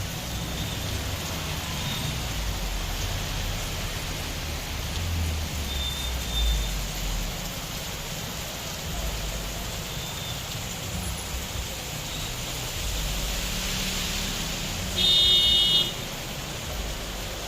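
Steady rain hissing, with a low rumble of traffic on a wet road. Near the end a vehicle horn sounds once for about a second.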